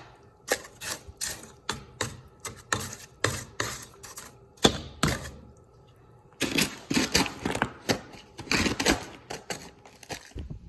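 Crunching footsteps in snow: crisp, irregular crunches about two or three a second, pausing for about a second and a half halfway through.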